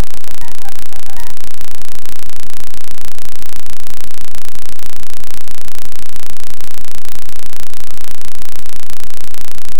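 Loud, steady static-like noise filling the whole range, with a few music notes that die away about a second in.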